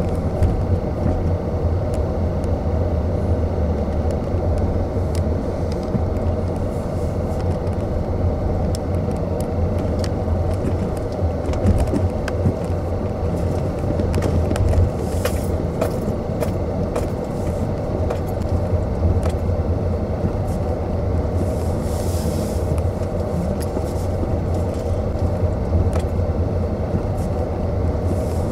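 Car road noise heard from inside the cabin while driving slowly: a steady low rumble of tyres and engine with scattered faint clicks.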